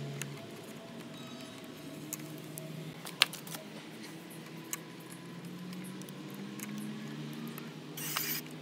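Clicks and taps of an amplifier circuit board being set and handled on a speaker enclosure, with one sharp click about three seconds in. Near the end a pen-style electric screwdriver runs briefly as it drives a board mounting screw. A low hum sits underneath throughout.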